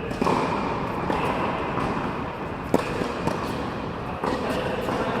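Tennis balls being struck by rackets and bouncing on an indoor court, a sharp pop roughly every second, echoing in the hall.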